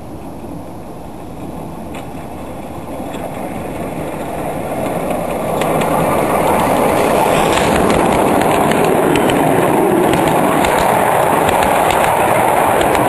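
Miniature live-steam locomotive and its mixed train of wagons approaching and running past, growing louder over the first six seconds. The wheels click-clack over large rail joints in a rapid run of sharp clicks.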